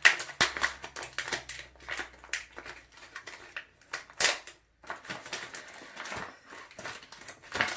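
Packaging of a headband being opened and handled by hand: an irregular run of crackles and rustles, with a sharper, louder crackle about four seconds in and again near the end.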